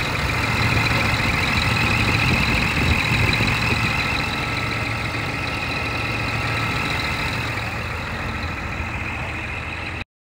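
Scania R380 truck's diesel engine idling steadily, with a constant low hum and a thin steady whine above it; the sound cuts off suddenly at the very end.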